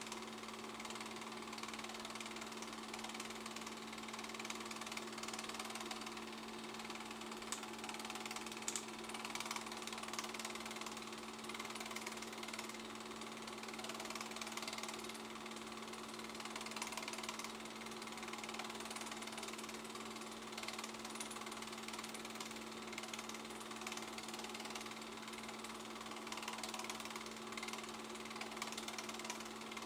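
Home-movie film projector running: a steady motor hum over the fast, even clatter of the film-advance mechanism.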